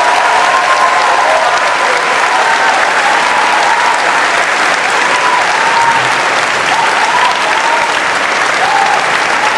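Audience applauding steadily at the end of a song, with a few short tones sounding faintly over the clapping.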